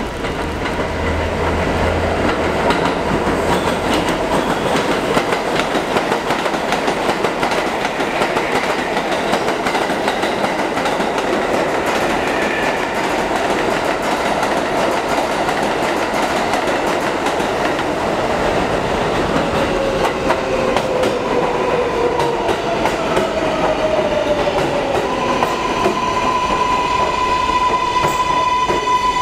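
New York City subway trains running through elevated stations: a continuous rumble and clickety-clack of wheels over rail joints. About two-thirds of the way in, tones slide downward, and near the end a steady high whine sets in as a train moves along the platform.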